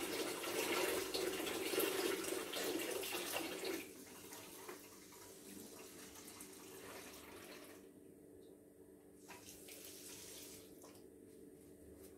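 Water running from a tap for hot water, cutting off about four seconds in. A faint steady hum remains after it.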